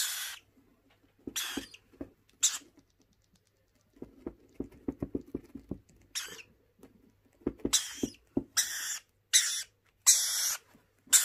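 Baby lorikeet chick making short, harsh begging squawks while being spoon-fed rearing formula. The squawks come in a string, with a quick run of soft rapid clicks in the middle, then come faster and louder as the spoon reaches its beak.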